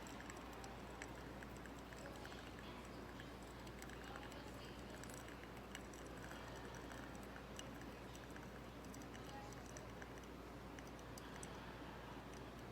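Faint, scattered light clicks and taps, irregular and close together, over a steady low hum.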